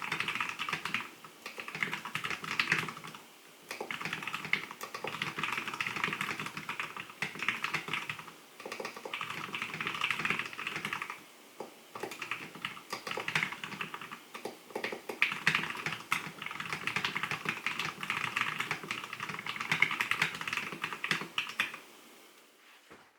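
Fast burst typing on a mechanical keyboard with lubed Cherry MX Brown tactile switches: rapid runs of key clacks broken by brief pauses every few seconds. The typing stops near the end.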